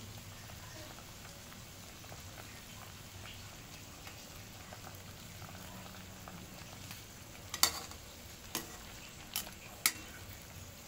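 A pot of sinigang boiling with a steady bubbling hiss while a ladle stirs it. In the last few seconds the ladle knocks against the pot four times with sharp clicks.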